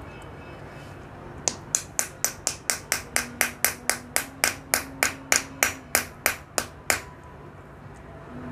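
Small hammer tapping a rough garnet held on a stone slab to break it: a quick, even run of about two dozen sharp light knocks, about four or five a second, starting about a second and a half in and stopping near the end.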